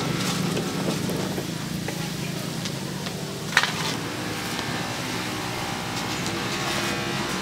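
Steady street background noise with a faint motor hum, broken by one sharp clack about three and a half seconds in.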